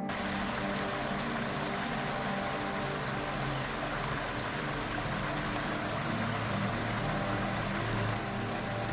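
Creek water rushing and splashing over rocks in a small cascade, a steady rush with a faint low hum underneath.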